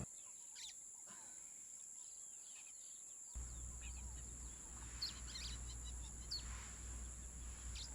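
Faint outdoor ambience: scattered bird chirps over a steady high-pitched whine, with a low rumble coming in about three seconds in.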